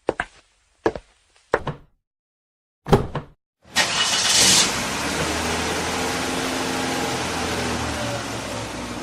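A few short clicks, then a heavier thump about three seconds in, then an engine starts with a loud rush and keeps running steadily.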